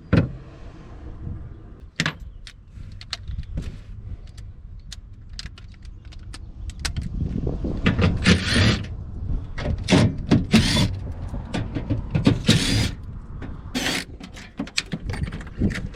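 Torx T30 fasteners being removed with a power driver: scattered clicks and clinks of the tool and bits, then from about halfway through several short, loud whirring bursts as the fasteners are spun out.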